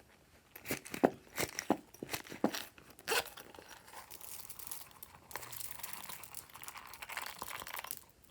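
Glossy slime being squished and mixed by hand, giving a run of sharp sticky pops and then a steady crackling that stops shortly before the end.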